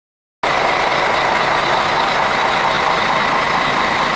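A bus's engine running at idle: a loud, steady, even whir that starts suddenly about half a second in.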